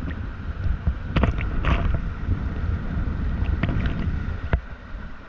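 Fast floodwater rushing and churning in a river cave, a deep, loud rumble with a few sharp impacts.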